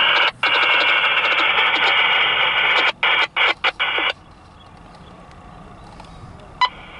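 Railroad scanner radio hissing with static. The static drops out briefly a few times and stops about four seconds in. A single short click comes near the end.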